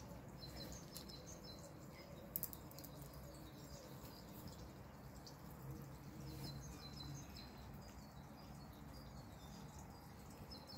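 Faint outdoor ambience with small birds chirping in short high calls now and then. There is a single brief tap a little over two seconds in.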